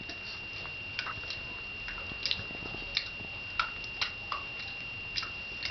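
A person chewing something hard, with small irregular crunching clicks.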